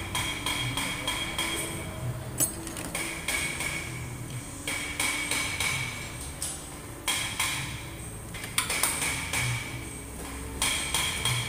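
Steel wrenches working on the bolts of an aluminium engine and transaxle: runs of rapid metallic clicking and tapping, each a second or two long with short pauses between, over a light ringing of struck metal.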